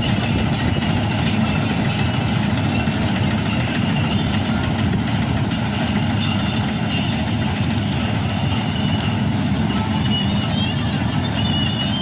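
A 75 hp Dasmesh combine harvester's engine and threshing machinery run steadily while it harvests paddy, a continuous, even mechanical drone.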